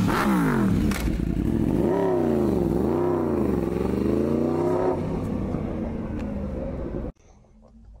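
Aprilia RSV4 1100 Factory's V4 engine with an SC Project exhaust, its revs rising and falling several times, then holding steadier. It cuts off suddenly about seven seconds in.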